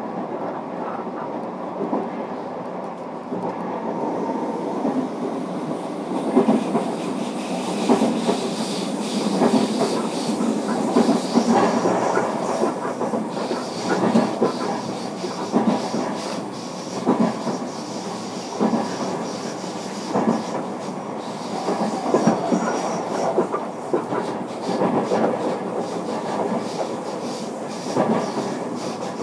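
Running sound inside the motor car of a JR Kyushu 305 series electric train: a steady rumble from the wheels and traction equipment, with repeated clicks of the wheels over rail joints. It grows louder a few seconds in.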